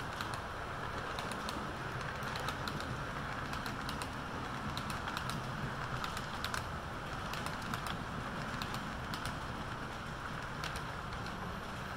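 Model railroad freight cars rolling past on the track: a steady rolling hum with irregular light clicks as the wheels cross the track.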